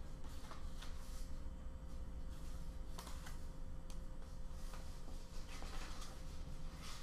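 Photographs and papers being handled: faint scattered rustles and light taps, over a steady faint hum of room tone.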